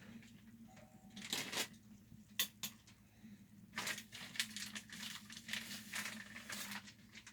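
Packaging crinkling and rustling, with scattered light clicks and knocks, as carbon fiber detector shaft parts are unwrapped and handled.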